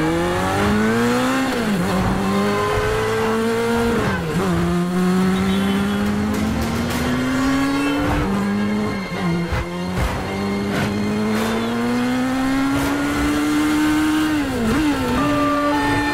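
Motorcycle engine accelerating hard: its pitch climbs steadily and drops sharply at each upshift, four times.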